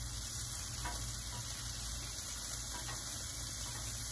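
Bacon and sausage sizzling steadily on a Blackstone propane flat-top griddle, with a couple of light clicks of metal tongs turning the meat.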